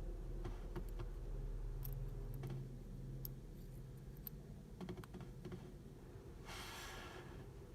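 Faint, irregular light clicks of metal tweezers and small brass lock pins against a padlock's lock core while driver pins are loaded into it, with a short rush of noise near the end.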